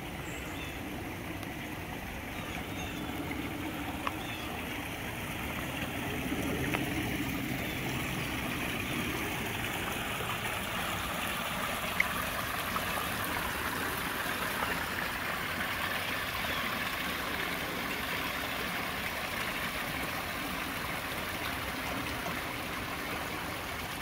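Water from a koi pond's rock waterfall splashing and running down into its stream, a steady rush that grows a little louder about six seconds in. A single sharp click near the middle.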